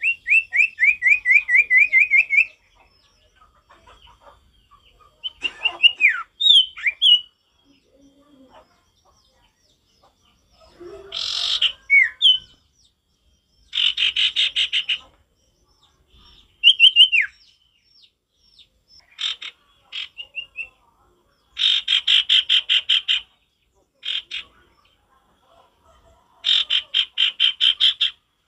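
Common iora (sirtu) singing: bursts of fast, evenly repeated notes lasting a second or two, alternating with short downslurred whistles.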